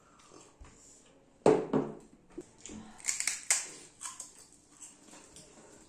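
Close-up eating sounds: irregular crunching and crackling with sharp clicks, loudest about a second and a half in and again in a cluster around the middle.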